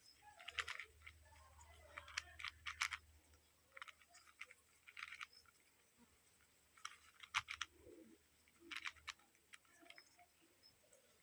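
Plastic 4x4 Rubik's cube being turned by hand: short runs of quick clicks as the layers rotate, coming every second or two with pauses between.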